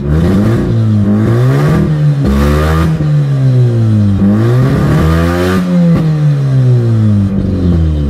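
Mazda RX-8's twin-rotor Renesis rotary engine, run with the exhaust disconnected ahead of the catalytic converter, revved up and down about four times and rising and falling in pitch. It sputters and runs rough from misfiring, which the owner traces to a bad ignition coil.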